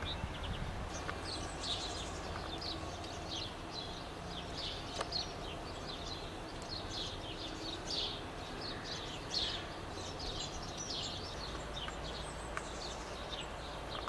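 Long-tailed tits calling: a quick, irregular stream of short, high, thin notes over a low background rumble.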